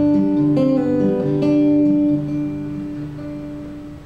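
Acoustic guitar picking a few notes that are left to ring and slowly fade away.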